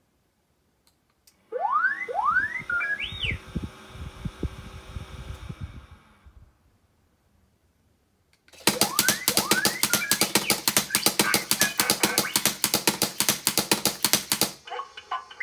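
R2-D2 replica droid playing R2-D2 sound effects: a few rising whistles and chirps over a low warble, a pause, then about six seconds of fast chattering beeps and clicks that stop abruptly.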